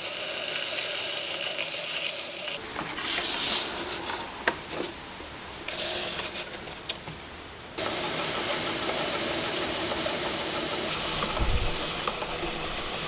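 Homemade 2x42 belt sharpener, its belt driven directly by a 750-watt variable-speed motor, running steadily while a steel chisel is held against the moving abrasive belt. The sound changes abruptly about two and a half seconds in and again just before eight seconds, with short bursts of high hiss in the middle stretch.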